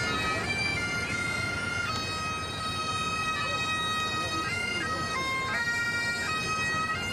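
Bagpipes playing a tune of long held notes that step from pitch to pitch.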